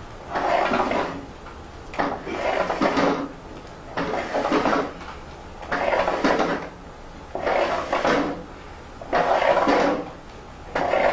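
Woollen Harris tweed cloth sliding and rustling as it is drawn through in regular strokes, about one every second and a half to two seconds.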